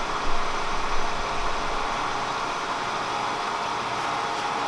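Kearney & Trecker 307 S-12 horizontal milling machine running with a steady electric-motor hum as its spindle is switched on.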